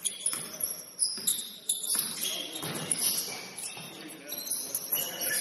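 Basketball game on a gym court: the ball bounces on the hardwood several times, with short high squeaks and players' voices in the background of a large hall.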